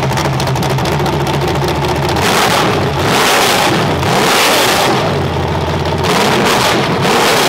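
Carbureted engine with open headers running on an engine run stand, loud and raw. It is revved up in several blips by hand at the carburetor throttle, about a second and a half to two seconds apart, and drops back to a fast idle between them.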